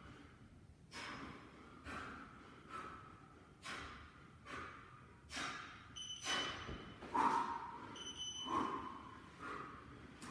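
A man breathing hard through push-ups: short, forceful exhales about once a second, in time with each rep, loudest in the second half. Two short high electronic beeps sound about two seconds apart partway through.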